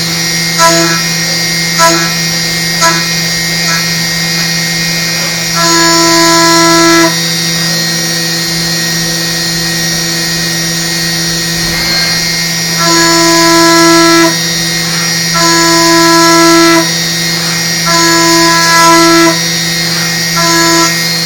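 Haas VF2 CNC vertical mill running a high-speed toolpath in soft jaws: a steady spindle hum, with a louder pitched whine from the end mill that comes and goes in stretches of a second or so as the cutter takes heavier engagement in the cut.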